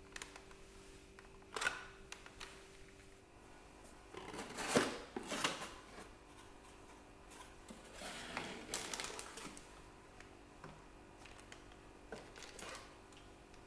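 Handling of hard plastic vacuum parts: a sharp click, then short bursts of scraping and clicking as the parts are worked apart or fitted together, with a few small clicks near the end.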